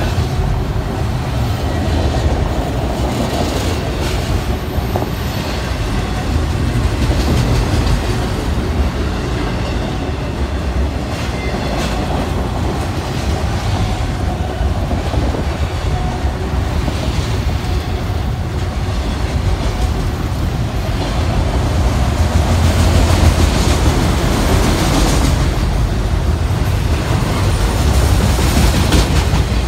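Freight train of autorack cars rolling past at close range: a steady rumble of steel wheels on the rails, with occasional clacks, swelling slightly in loudness toward the end.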